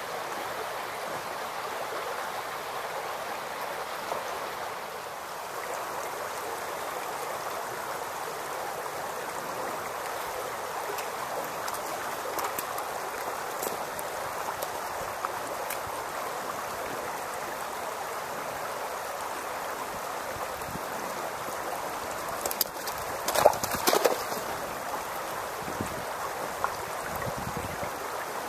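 Shallow creek babbling steadily over stones. A brief run of louder crackles and pops comes about three-quarters of the way through.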